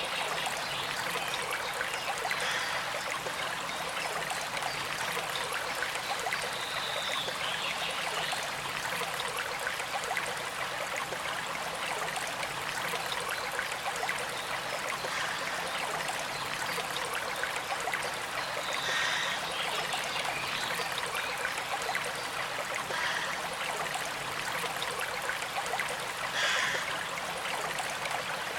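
Small stream running, water trickling steadily without a break.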